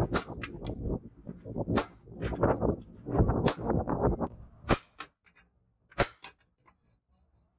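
Hand hammer striking leaf-spring steel held on an anvil: a series of sharp metallic blows at uneven intervals. About five seconds in the blows stop, and a near-quiet stretch is broken by two more sharp strikes about six seconds in.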